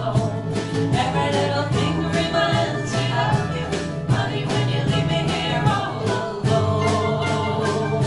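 Live band playing a song with a steady strummed rhythm, with singing: electric bass, ukulele, acoustic guitar, electric guitar and mandolin.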